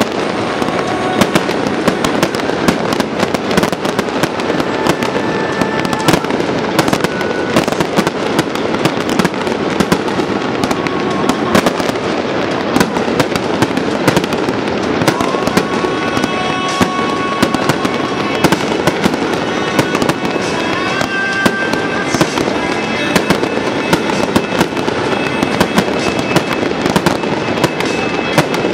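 Aerial fireworks shells bursting in a dense, unbroken run of bangs and crackles, with music playing along.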